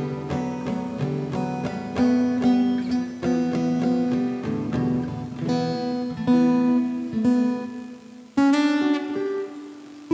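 Acoustic-electric guitar played without singing: plucked notes and chords that ring and decay, with a loud strummed chord near the end that rings out.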